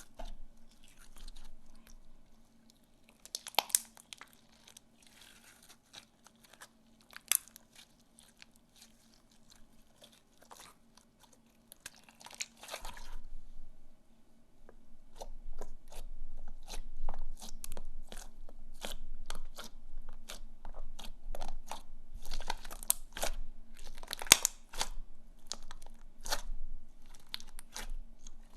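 Hands squeezing and stretching slime, making irregular sharp clicks and crackles, sparse at first and coming in quick clusters from about halfway through.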